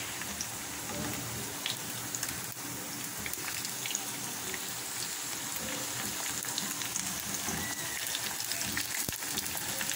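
Potato kababs shallow-frying in hot oil in a pan: a steady sizzle and crackle of the oil as they are turned over, with a few faint clicks.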